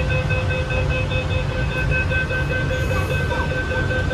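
Metro train's door warning signal: a steady electronic tone with several pitches held without a break, over the low rumble of the standing carriage.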